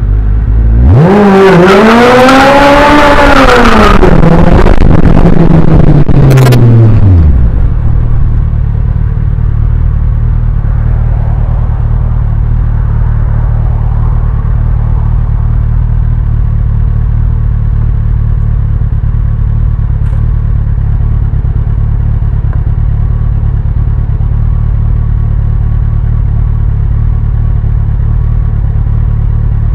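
Campagna T-Rex's Kawasaki 1400cc inline-four engine through a Two Brothers Racing exhaust, heard close to the exhaust tip. It revs up and back down over the first few seconds, drops about seven seconds in, and then idles steadily.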